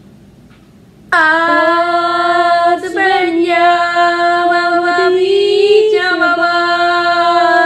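A child singing one long held note, starting suddenly about a second in and wavering slightly, with brief breaks partway through.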